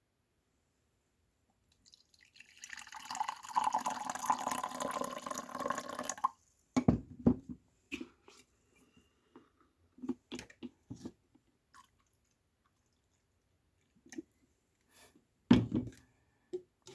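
Liquid being poured into a cup for about four seconds, stopping suddenly. It is followed by scattered short knocks and clinks, as of a cup or kettle being handled.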